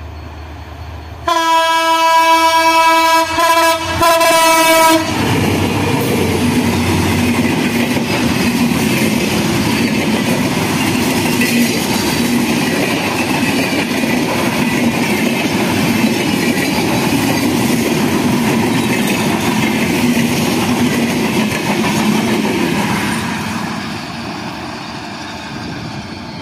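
Diesel-electric locomotive's air horn sounding about a second in: one long blast, then two short ones, in a chord of several pitches. Then the locomotive and a long train of passenger coaches pass close by with a steady rumble and wheel noise on the rails, fading near the end.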